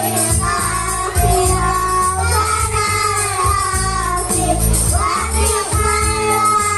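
A child singing a melody over loud musical accompaniment with a steady low beat.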